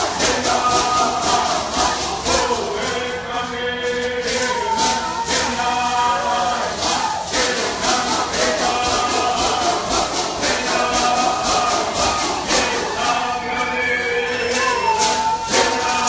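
Traditional bird singing: a group of voices chanting together in unison over a steady, even beat of shaken rattles.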